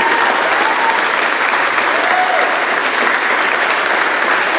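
Wedding congregation applauding steadily, with a few cheering voices rising and falling over the clapping, greeting the newlyweds' kiss.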